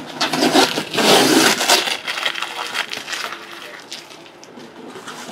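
Shrink-wrapped trading-card box packaging being handled: crinkling and crackling, loudest over the first two seconds, then softer rustling.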